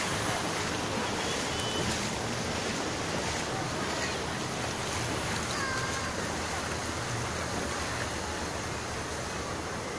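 Steady rushing noise of surf in a large wave pool, mixed with wind on the microphone.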